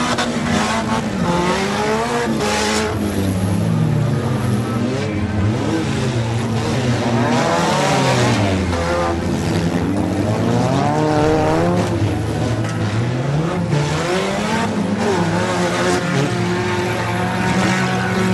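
Several demolition derby cars' engines revving hard and easing off, their overlapping engine notes rising and falling.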